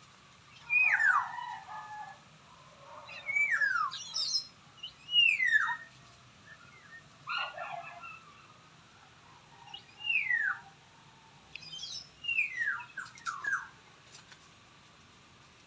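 A bird calling repeatedly, about six times a couple of seconds apart, each call a short whistled note that slides downward in pitch.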